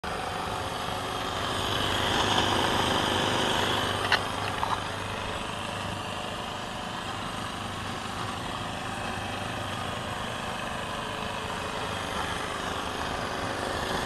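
Homemade steam boiler and small model steam engine running: a steady hiss and hum, brightest about two to four seconds in, with a couple of sharp clicks just after.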